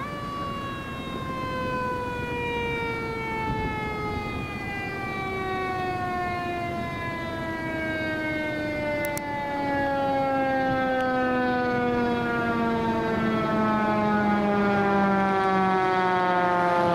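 Fire engine's mechanical siren coasting down after a wind-up, in one long wail that falls slowly in pitch. It grows louder as the engine approaches.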